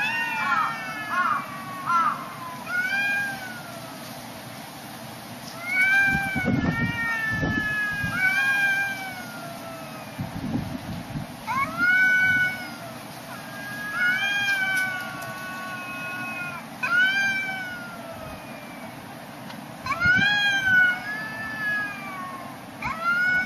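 Cats yowling at each other in a fight. It is a string of long, drawn-out calls that rise and then fall, coming every second or two, with some of them overlapping.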